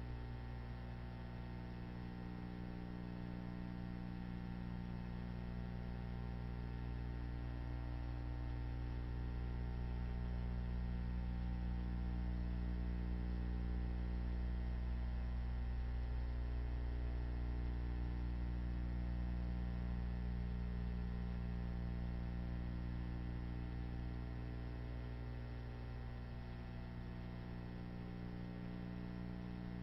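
Steady electrical mains hum with a stack of even overtones and no other sound, wavering slightly about every eight seconds.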